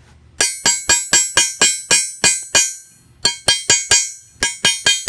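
Hammer blows on the divoted end of a steel rivet setter, rounding over the head of a copper rivet on a section of railroad rail used as an anvil: sharp ringing metallic strikes, about four a second, with a short pause near the middle.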